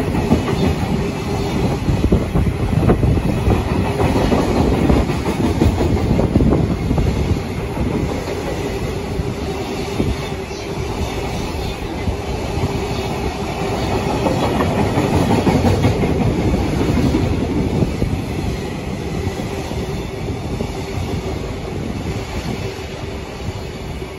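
Freight train of container wagons rolling past close by at speed, its wheels running steadily on the rails. It eases off near the end as the last wagon clears.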